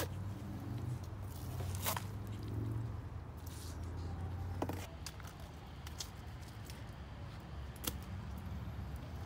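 Fillet knife slicing through a redfish on a cutting table: soft wet cutting and scraping, with a few sharp taps against the table. A steady low hum runs underneath.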